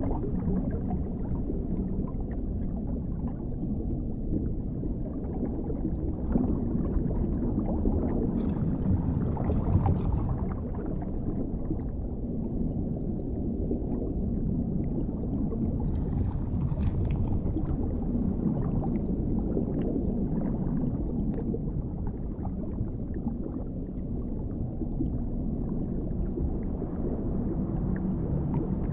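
Underwater ambience: a steady deep rumble with faint, scattered bubbling and gurgling.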